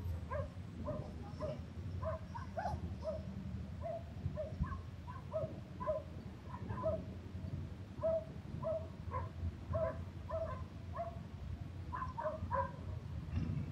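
A dog barking repeatedly in short, even yaps, about two a second, over a low steady rumble of wind.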